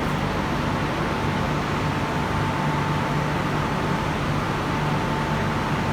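Steady noise inside an MTR Tung Chung line K-Train carriage, with a low hum and a thin, steady high tone that comes in just after the start and holds.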